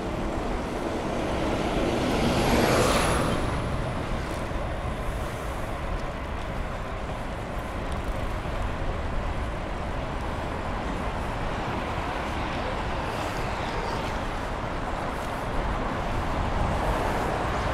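Road traffic passing alongside a moving bicycle over a steady low rumble. One vehicle goes by loudest about three seconds in, with a faint high whine.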